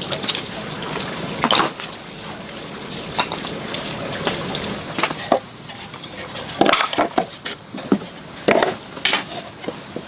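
Irregular knocks and clinks of hard objects being handled, coming closer together in the second half, over a steady hiss.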